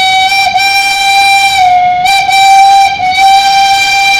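A loud, high-pitched horn note held steadily, wavering slightly in pitch, with short breaks about two seconds in and again about three seconds in.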